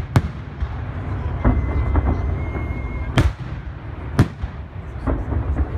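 Aerial firework shells bursting: three sharp bangs, one right at the start and two more about a second apart past the middle, with smaller pops between them over a steady low rumble.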